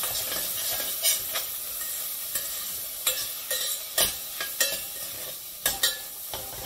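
Chopped vegetables sizzling in a stainless steel pressure cooker while a spatula stirs them. The spatula scrapes and knocks against the pot's metal base and sides, giving several sharp knocks over the steady sizzle.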